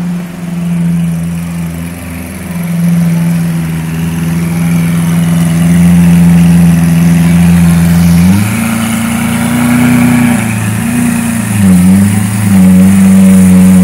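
Lamborghini Aventador's V12 engine idling steadily, then given light revs about eight seconds in that raise and waver its pitch for a few seconds before it settles back to idle.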